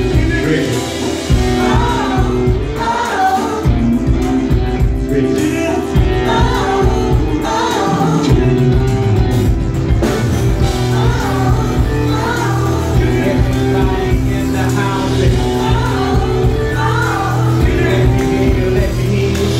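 Live R&B band playing, with sung lead vocals over steady bass and drums; a male and a female singer are at the microphones.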